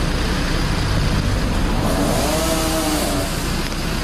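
An engine running steadily, with one brief rise and fall in pitch about two seconds in.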